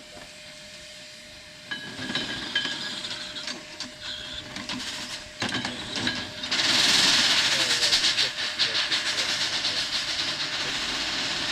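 Erie Type A steam shovel at work: scattered clanks from about two seconds in, then a loud steam hiss with a fast pulsing beat from about six and a half seconds on.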